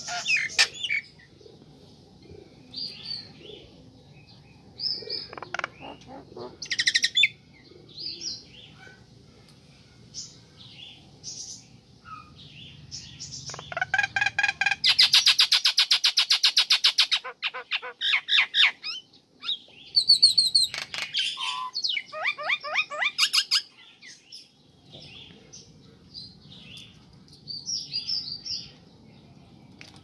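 Female common myna calling: a varied string of chirps, whistles and harsh notes. Around the middle comes a loud, fast rattle of rapidly repeated notes lasting several seconds, followed shortly after by another quick run of notes.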